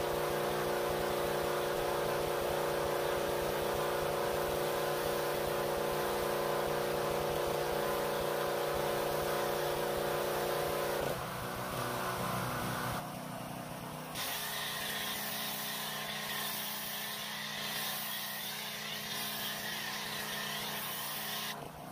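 Pressure washer running with a steady motor hum while a foam cannon sprays suds with a hiss. The hum shifts about eleven seconds in and dips briefly near thirteen seconds, after which the spray hiss is stronger.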